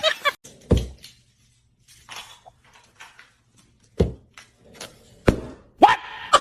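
Four dull thuds, one about a second in and three more spaced over the last few seconds, with near quiet between them.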